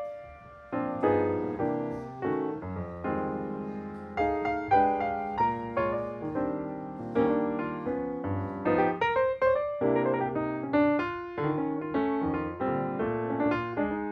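Background piano music: a melody of struck notes and chords, each fading after it is played, with a brief pause about half a second in.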